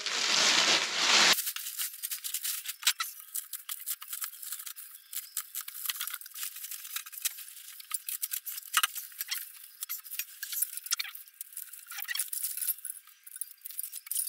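Plastic bag and bubble wrap rustling and crinkling as parts are unwrapped: a loud rustle for about the first second, then a long run of sharp crackles.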